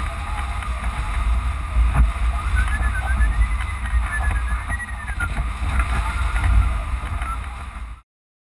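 Wind buffeting the microphone of a camera mounted on a flying hang glider, a steady low rush, with a variometer beeping in quick pulses whose pitch rises and falls as the glider climbs and sinks in thermals. The sound cuts off abruptly about 8 seconds in.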